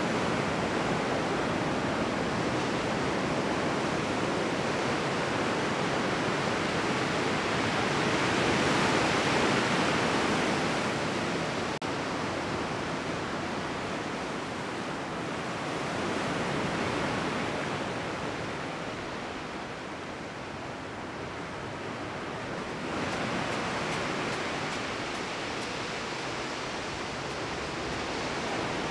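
Sea waves breaking and washing in the surf: a steady rushing that swells and eases, louder about a third of the way in, quieter past the middle, and rising again near the last quarter.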